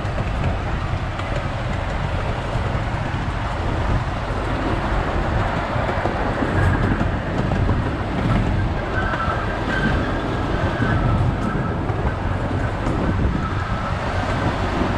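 Amusement-park train rolling along its track, heard from on board: a steady rumble of wheels on rail. A faint high-pitched squeal comes in briefly a little after halfway.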